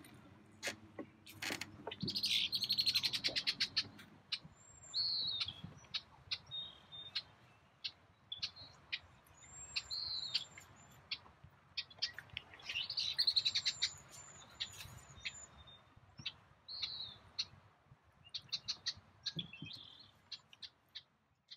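Birds chirping and singing: many short, high whistled calls, with a rapid trill about two seconds in and another about thirteen seconds in.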